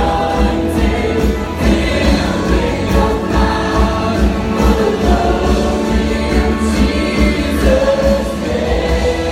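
Live worship music: singers and the congregation singing together over the band's steady low beat.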